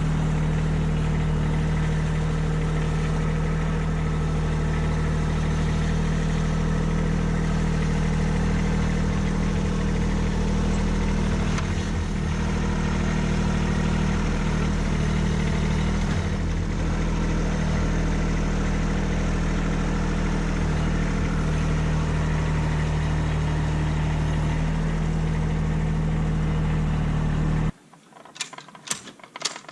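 Kubota B2601 compact tractor's three-cylinder diesel engine running steadily, with a brief waver in its note partway through. Near the end the engine sound cuts off suddenly and a few sharp clicks follow.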